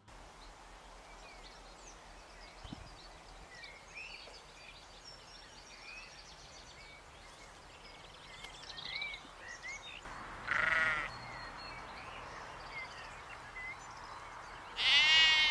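Sheep bleating twice, first about ten seconds in and again near the end, the second call louder and longer.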